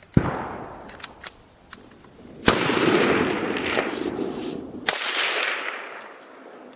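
Three rifle shots from a Schmidt-Rubin G11 straight-pull rifle firing 7.5x55 Swiss GP11 rounds, about two and a half seconds apart. Each shot is followed by a long rolling echo.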